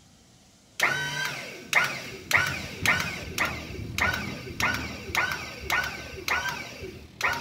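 Hydraulic tipping body of an electric loader lifting its cargo bed: a sharp chirping pulse repeating nearly twice a second, starting about a second in.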